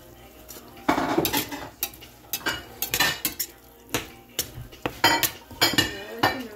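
Kitchen utensils clinking and scraping against pans and dishes while taco meat and tortillas are cooked: a series of sharp, irregular clinks, about one or two a second.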